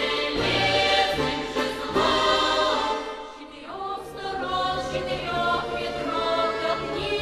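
Choral background music: a choir singing long held notes, dipping briefly in loudness about three seconds in.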